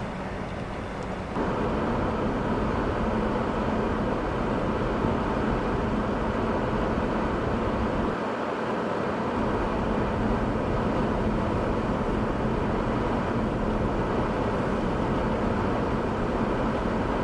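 Steady noise of a running vehicle engine with a constant hum, under blizzard wind. The level steps up suddenly about a second and a half in.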